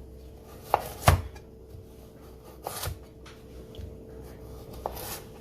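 Kitchen knife cutting carrots on a chopping board: a few sharp, unevenly spaced knocks of the blade on the board, the loudest about a second in.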